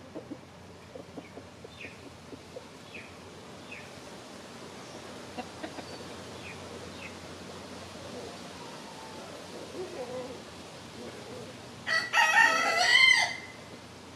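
A rooster crows once, loud and drawn out, about twelve seconds in. Before it, the flock clucks softly and there are a few faint short chirps over a steady outdoor hush.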